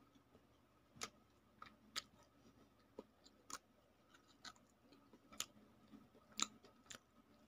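Faint eating sounds of a person chewing food eaten by hand: short, irregular mouth clicks and smacks about once a second.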